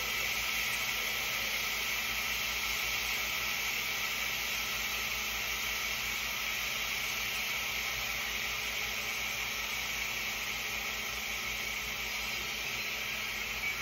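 Kitchen range hood fan running with a steady hiss over a faint low hum.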